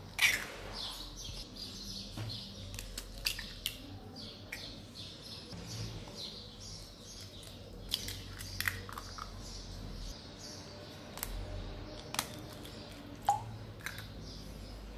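Eggs cracked one after another on the rim of a glass bowl: sharp taps and shell cracks every second or few seconds, with eggs dropping into the bowl.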